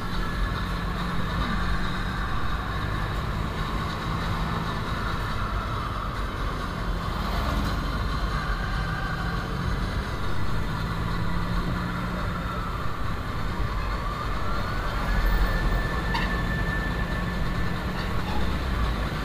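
Engine and road noise of a moving vehicle, heard from inside its cabin, running steadily throughout. About three-quarters of the way through, a whine rises and then holds steady.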